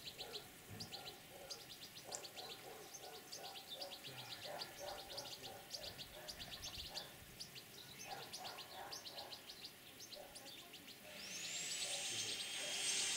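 European greenfinch twittering: rapid runs of short, high chirps. Near the end a rising whine with a hiss comes in and grows louder.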